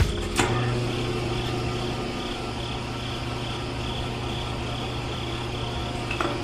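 Small electric motor driving a miniature toy cement mixer's drum. It is switched on with a rocker-switch click, runs with a steady hum and a light regular ticking about three times a second, and is switched off with a click at the end.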